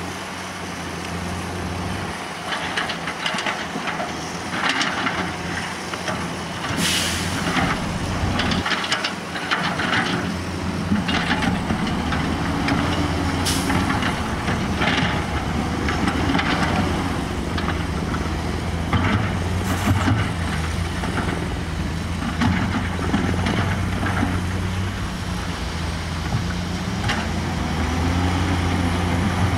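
Heavy diesel construction machinery, trucks and earthmovers, running steadily, with the engine pitch rising and falling now and then as it works. Many short, sharp noises are scattered over the engine sound throughout.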